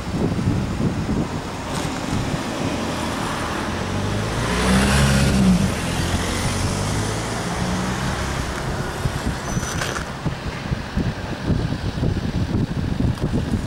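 A motor vehicle drives past about five seconds in, its engine note rising and then falling, over a steady uneven rumble of wind buffeting the microphone.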